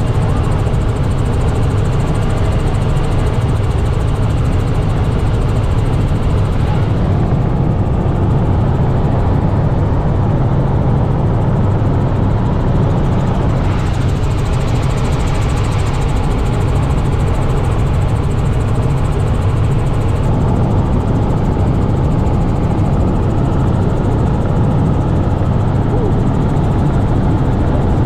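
Robinson R66 helicopter in cruise flight, heard from inside the cabin: the steady, loud drone of its rotor and turbine engine. A rushing hiss swells for a few seconds twice.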